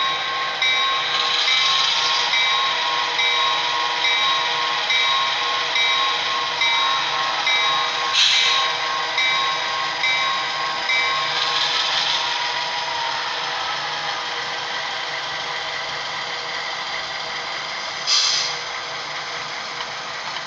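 Model diesel locomotive's sound decoder playing through its small onboard speaker as the HO-scale FT units run: a steady diesel engine sound. A locomotive bell rings evenly, about every 0.7 s, for roughly the first eleven seconds. Two short air hisses come about eight seconds in and near the end.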